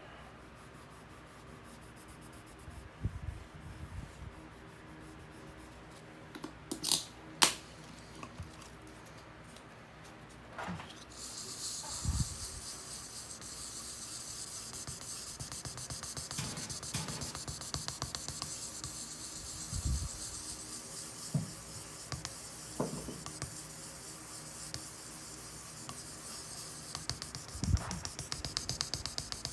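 Repair work on a wooden floor: a few sharp clicks and taps, then a steady high hiss begins about eleven seconds in and carries on with more small taps over it.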